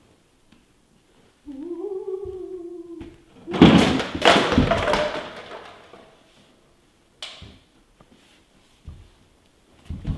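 A person's voice holding a low moaning 'oooh' for about a second and a half. Then comes a loud thud and clatter of a body falling to the floor, and a few small knocks afterwards.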